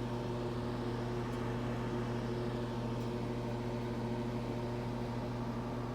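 Microwave oven running while it heats food: a steady, even hum that does not change.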